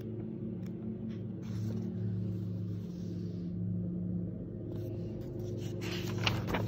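A steady low hum with a slow throb, with soft rustles and clicks of a paperback's pages being handled, thickest near the end.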